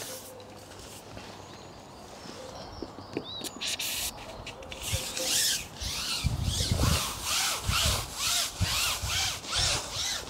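Match-fishing pole being worked out over the water: a run of rubbing strokes, two or three a second, starting about four seconds in, with a few dull low knocks among them.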